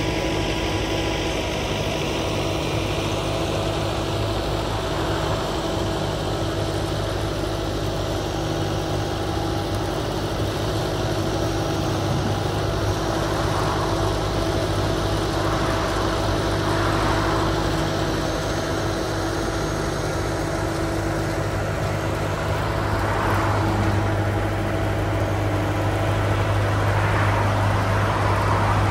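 Carlton tracked stump grinder's engine running at a steady pitch while the machine drives on its tracks, with a few short swells of higher-pitched hiss.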